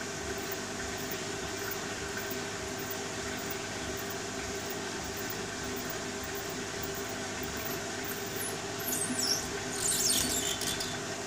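Beko front-loading washing machine tumbling a load of sandals and dog toys in wash water: a steady motor hum with water sloshing in the drum. Near the end come a few high squeaks from the tumbling load.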